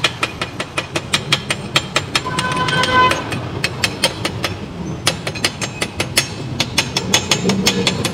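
Chipping hammer knocking slag off a freshly laid stick-weld bead on steel plate: a fast, even run of sharp metallic taps, about four a second, with a short ringing tone about three seconds in.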